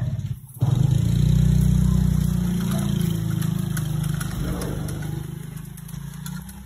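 A motor vehicle's engine running close by: a loud low hum that starts suddenly about half a second in, holds steady, then fades away over the last couple of seconds.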